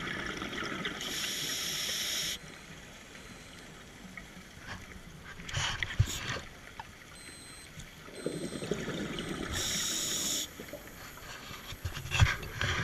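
A scuba diver's regulator breathing, heard underwater: two breaths about eight seconds apart, each a rush of bubbles that ends in a high hiss. A few sharp knocks fall in between and near the end.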